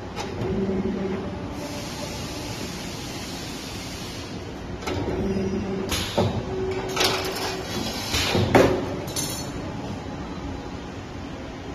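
CNC wire bending machine running through its bending cycle: short stretches of motor hum, a hiss lasting about two seconds, and a series of sharp metallic clacks, the loudest about two-thirds of the way through.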